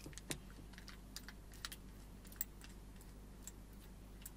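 Faint, irregular light clicks and taps of a Gibraltar drum-rack clamp and its hardware being handled and fitted onto the rack.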